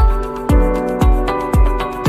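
Electronic background music with a steady kick drum beat, about two beats a second, under held chords.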